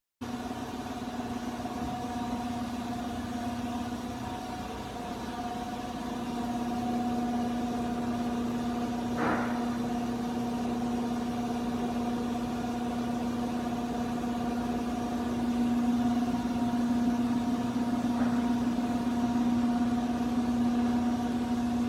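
A steady mechanical hum, like an engine or motor running at idle, with one strong low tone and fainter steady overtones above it.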